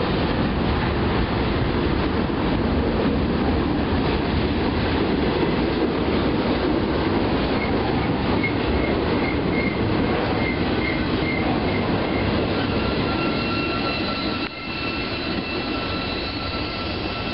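CSX double-stack intermodal freight train's well cars rolling past close by, a steady heavy rumble of wheels on rail. A faint pulsing wheel squeal comes in the middle. Near the end the rumble drops suddenly, and a steadier high wheel squeal sounds over it.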